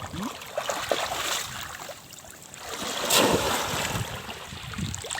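Shallow water splashing and sloshing as people wade through it, with a louder splash about three seconds in.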